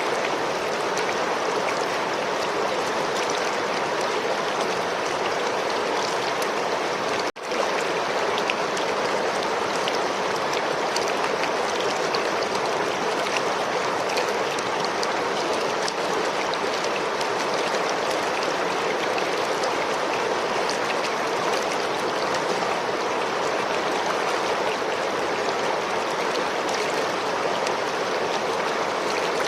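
River water flowing steadily, an even rushing babble with small splashes scattered through it. The sound cuts out for an instant about seven seconds in.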